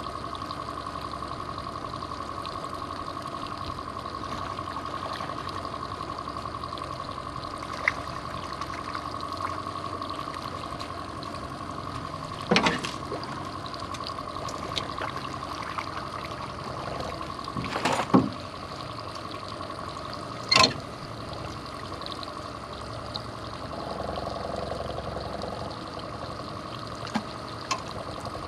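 Outboard motor running steadily at trolling speed with a constant hum and whine, water washing around the stern. A few sharp knocks on the boat cut through, the loudest about two-thirds of the way in.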